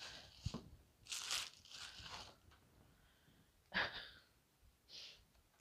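Packing material handled in several short bursts of crunching and rustling, as a fragile item is pulled out of its styrofoam packing.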